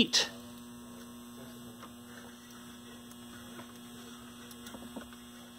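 Steady low electrical mains hum, with a few faint clicks.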